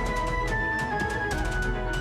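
Instrumental dance music with a quick, steady beat: a held melody line stepping down in pitch over heavy bass.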